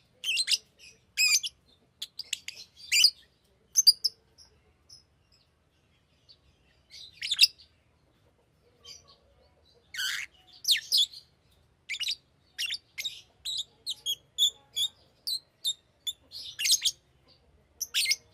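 Fisher's lovebird giving short, shrill chirps in irregular bursts. They pause for a couple of seconds about a third of the way in, then pick up into a quick run of chirps over the second half.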